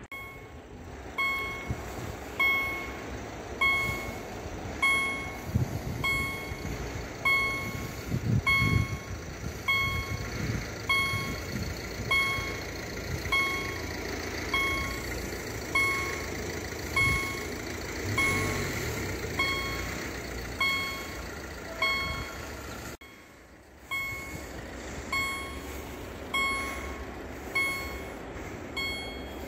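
Level-crossing warning bell striking steadily, a little under once a second, each strike ringing and fading. It signals that the crossing is closed, with barriers down and red lights flashing for an approaching train.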